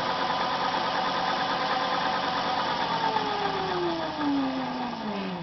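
DC motor driven by a PWM controller, whining at high speed with a steady pitch, then slowing from about three seconds in so that its whine glides steadily down as the throttle potentiometer is turned back.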